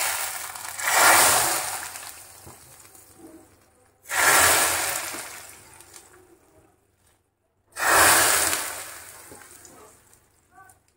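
Hot ghee-and-sugar caramel poured into a pot of hot milk khir in three goes, about four seconds apart. Each pour sets off a loud sizzle that starts suddenly and fades over a couple of seconds.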